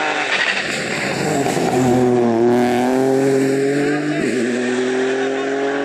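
Ford Fiesta rally car's engine passing through a bend: its pitch drops as the car slows for the corner, then climbs steadily as it accelerates out, with a brief break about four seconds in.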